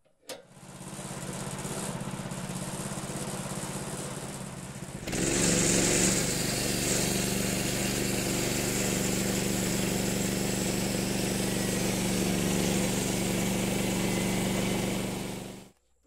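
Woodland Mills HM126 portable band sawmill's small gas engine catches and runs at a low idle. About five seconds in it is throttled up to full speed and runs steadily and louder, then cuts off suddenly near the end.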